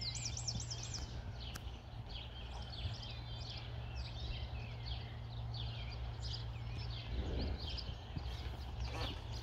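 Songbirds chirping and trilling, many short calls overlapping, over a steady low hum.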